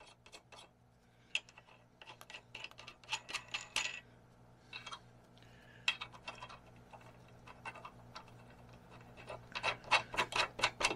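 Steel tapered nuts, like 1/2-20 lug nuts, clicking and clinking as they are handled and spun by hand onto the studs of a high-steer arm on a Dana 60 steering knuckle: scattered runs of small metallic ticks, over a faint steady hum.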